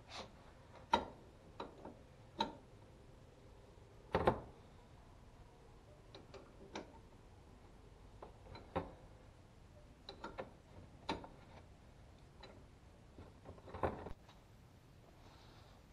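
Hand tools clicking and clinking against metal: a dozen or so separate, irregular clicks and knocks, the loudest about four seconds in and just before the end.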